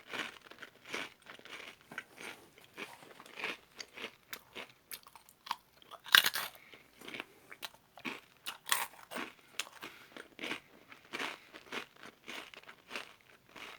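Someone biting and chewing Matdongsan, a crunchy fried-dough snack coated in syrup and peanuts: irregular crisp crunches, with a few louder bites partway through.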